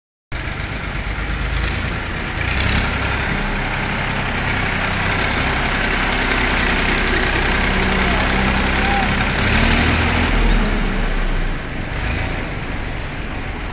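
Massey Ferguson tractor's diesel engine running as it pulls a trailer. It revs up briefly about two and a half seconds in and again around ten seconds, then eases off.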